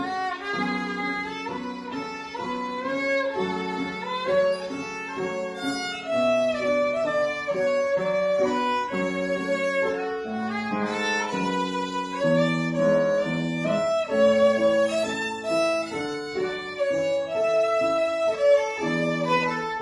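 Violin playing a melody, with a lower accompaniment of held notes beneath it.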